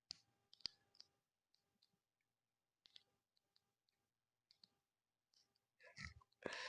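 Faint clicks and ticks of small plastic model-kit parts being handled and snapped together, with a louder burst of handling noise about six seconds in.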